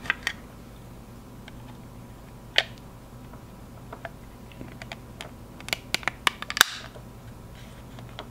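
Small plastic clicks and taps as the clear display window is handled and pressed back into a Fluke 77 multimeter's plastic front case, scattered through with a quick run of clicks about six seconds in that ends in the loudest, sharpest click.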